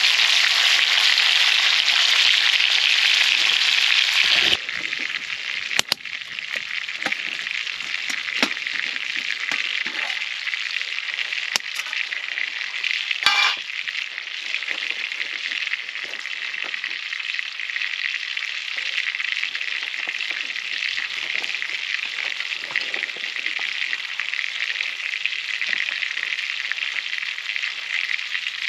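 Food frying in a pan, a steady sizzle with scattered pops and crackles. The sizzle drops sharply in level about four and a half seconds in and carries on more quietly.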